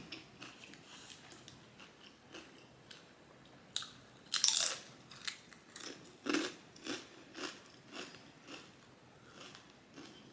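Close-miked biting and chewing of crunchy food: a loud crunchy bite about four and a half seconds in, then steady chewing about twice a second, with small mouth clicks.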